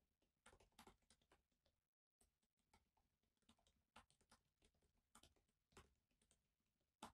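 Faint typing on a laptop keyboard: irregular key clicks several a second, pausing briefly about two seconds in, with one sharper click at the end.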